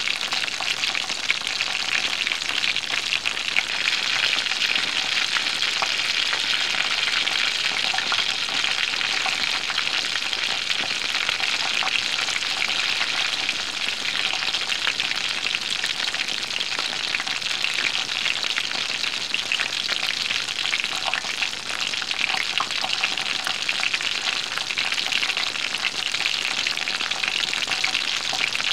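Food frying in a hot pan: a steady sizzling hiss full of fine crackles and pops.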